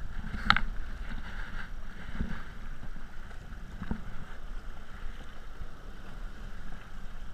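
Sea kayak being paddled through choppy ocean water: paddle blades splashing in and water washing against the hull, over a steady low rumble. A sharp knock about half a second in is the loudest sound, and there are softer stroke sounds about two and four seconds in.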